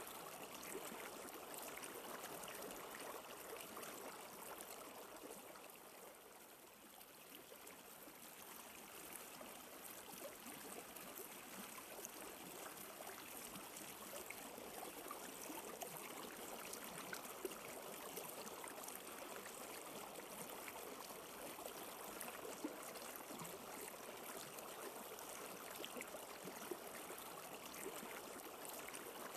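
Flowing stream water running steadily, with small trickling splashes, briefly quieter about six seconds in.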